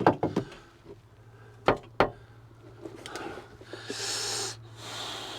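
Sharp metal knocks and clunks of a monitor-mount bracket being offered up against its fitting in a tractor cab: three in quick succession at the start, two more a little under two seconds in. A low steady hum comes in with them, and a short hiss follows about four seconds in.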